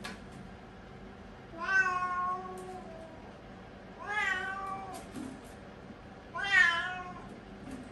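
Siamese cat meowing three times, drawn-out calls about two seconds apart, while straining on a toilet-training seat; the owner puts the meowing down to constipation.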